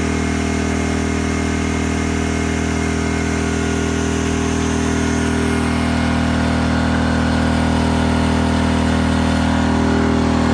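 Pulsar PG2000iS 2000-watt inverter generator running full tilt under a load of about 15 amps (an 1875-watt blow dryer on high plus a fan), a steady drone that grows slightly louder; it is handling the load like a champ.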